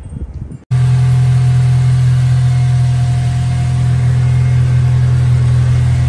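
Acura RSX's four-cylinder engine running steadily through its aftermarket Greddy exhaust, a loud even drone that starts abruptly just under a second in.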